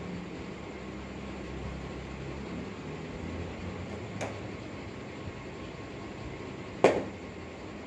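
Wooden skateboard deck being handled, giving a light tap about four seconds in and one sharp knock near the end, over a steady room hiss and low hum.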